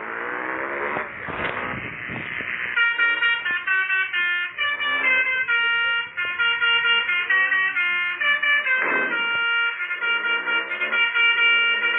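Telolet basuri multi-tone horn on a motorcycle playing a tune of short stepped notes, starting a little under three seconds in. Before it comes a rushing noise, and a brief noisy burst cuts across the tune near the nine-second mark.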